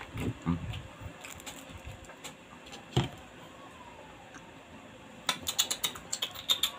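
A person drinking juice from a glass, with a sharp click about three seconds in and a quick run of small mouth clicks and smacks near the end.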